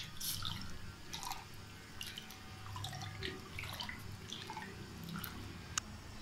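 Wooden spoon stirring milk and rice in a steel pot: faint liquid sloshing with small scattered plops, and one sharp click near the end.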